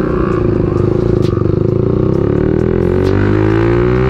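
Motorcycle engine running under way, its pitch dipping slightly about a second in and then climbing steadily as the bike accelerates.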